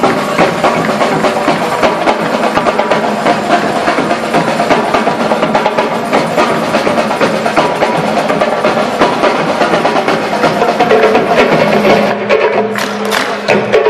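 Large percussion ensemble playing a fast, dense rhythm together on big double-headed bass drums and a line of snare-style drums. Near the end it changes to a sparser passage of sharp, separate strikes.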